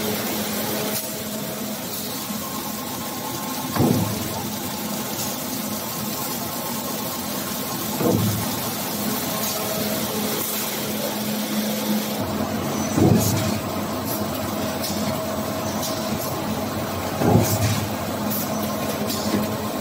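Paper-roll rewinding machine running with a steady mechanical hum and a constant low drone. A louder clunk repeats about every four to five seconds as the machine cycles.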